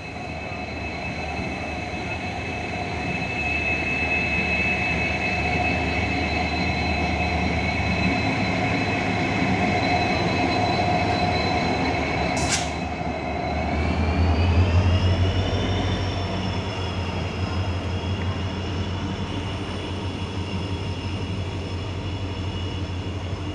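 A train running through a station at speed: a continuous rumble with a steady whine that rises in pitch and peaks in loudness about two-thirds of the way through. There is one sharp click about halfway.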